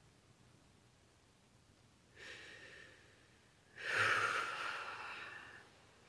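A woman's breathing while she cries: a short breath about two seconds in, then a louder, longer sighing breath that starts sharply and fades over nearly two seconds.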